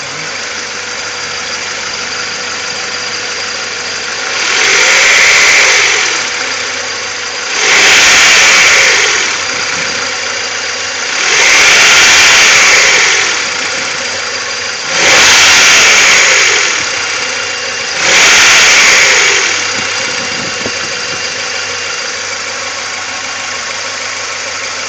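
Honda B18B1 1.8-litre DOHC four-cylinder engine in an Acura Integra idling steadily and revved five times, each rev a quick rise and fall of about a second and a half, during a manifold vacuum gauge test.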